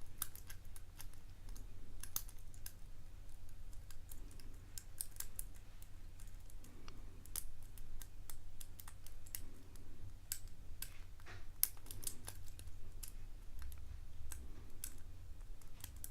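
Lock pick and tension wrench working the pin stacks inside a custom-pinned padlock: irregular light metallic clicks and scrapes as pins are lifted and set, over a low steady hum.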